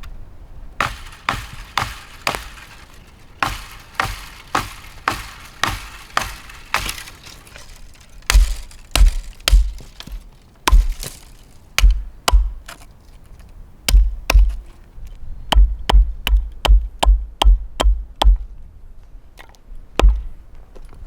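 Wood being chopped: repeated sharp blows, about two a second, in runs with short pauses. From about eight seconds in, each blow lands with a heavy thud.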